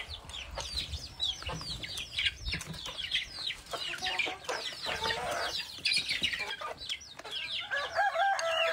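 Chickens clucking, with many short, quickly falling calls close together. Near the end a rooster starts a long crow.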